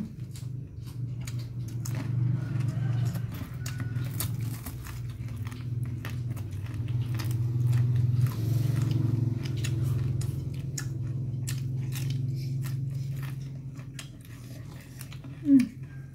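People chewing and crunching raw lalapan vegetables such as cabbage and long beans close to the microphone, with many short sharp crunches over a steady low hum. A brief loud sound breaks in near the end.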